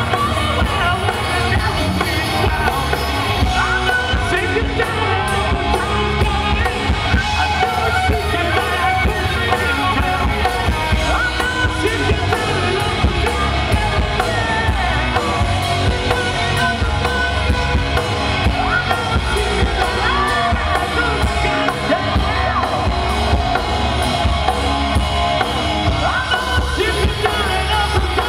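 Live rock band playing: distorted electric guitars, bass and a drum kit, with a male singer.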